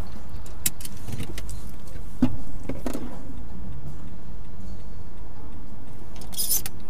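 Car cabin noise picked up by a dashcam: a low steady rumble as the car slows to a stop, with scattered clicks and a short thump about two seconds in, and a brief hiss near the end.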